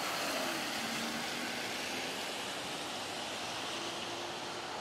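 A car passing close by on the street, its road and tyre noise loudest near the start and slowly fading away.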